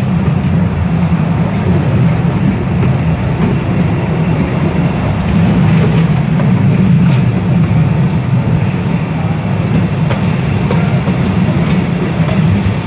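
Open-carriage narrow-gauge cave train running along its track, a steady low rumble of wheels on rails with a few faint clicks.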